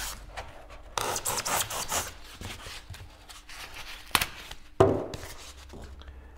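Serrated bread knife sawing through a foam block in rough back-and-forth strokes, with a sharp click about four seconds in.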